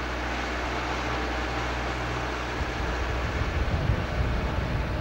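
Motorboat engine running steadily under way, a low even hum under the noise of the boat moving through water. From about two and a half seconds in, a rougher, uneven low rumble joins it.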